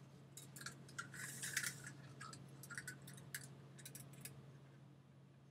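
Faint clicks and scrapes of 11-gauge armature wire being bent and handled by hand, a scatter of small ticks that dies away about four seconds in, over a low steady hum.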